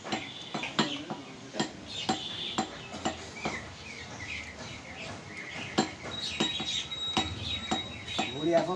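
Irregular sharp clinks and knocks of knife-and-block butchering work, with small birds chirping.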